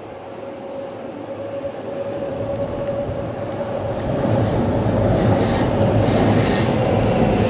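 Electric commuter train approaching and running past on the tracks below. It grows louder over the first four seconds or so, with a steady whine, then holds at a steady level of running noise.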